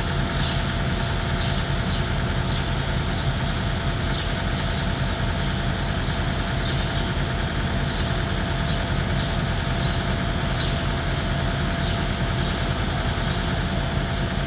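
Heavy excavator's diesel engine idling steadily, a constant low rumble with a steady whine above it.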